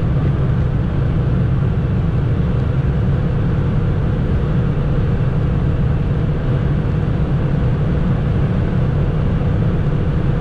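Fiat Panda at motorway speed heard from inside the cabin: steady engine drone with road and wind noise and a faint steady whine above it.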